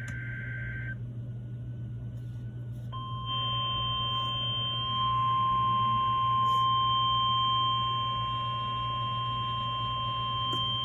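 NOAA Weather Radio test broadcast: the tail of the SAME digital header's two-tone data burst stops about a second in. About two seconds later the 1050 Hz warning alarm tone starts, one steady high beep held for about nine seconds over a low hum.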